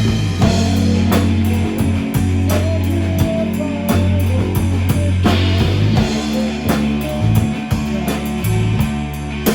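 Rock music: a band with guitar, bass and drum kit playing a steady beat.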